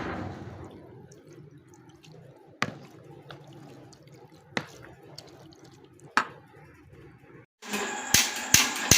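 Chicken being mixed by hand in a wet marinade, a soft squelching, with three sharp clicks against the bowl. About seven and a half seconds in, a louder hissing sound with rapid sharp knocks takes over.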